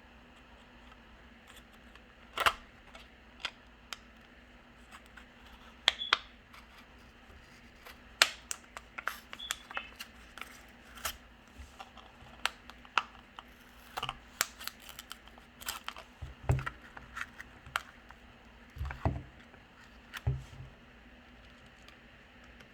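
Irregular sharp clicks, ticks and light scrapes of small hand tools against a Samsung Galaxy S9's glass back as it is pried off the phone, with a few duller knocks in the second half.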